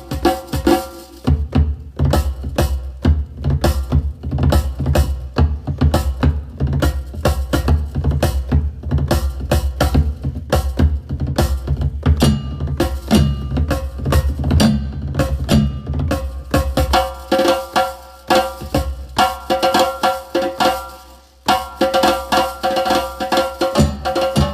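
Lebanese-style percussion samples finger-drummed on a Maschine Studio pad controller: a fast, dense rhythm of drum and wood-block-like hits over a steady low bass. About two-thirds through, the bass drops out and lighter, ringing higher-pitched hits carry the pattern, with a brief break shortly after.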